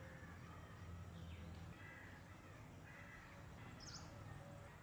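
Near silence: faint outdoor ambience with scattered short, distant bird calls and a steady low hum, one brief higher call about four seconds in.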